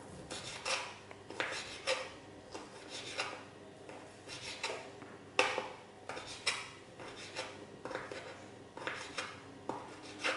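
Paring knife cutting chorizo sausages into small cubes on a bamboo cutting board: irregular taps and scrapes of the blade against the wood, about two a second.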